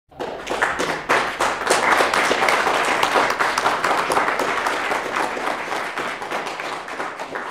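Audience applauding, many hands clapping together, dying down toward the end.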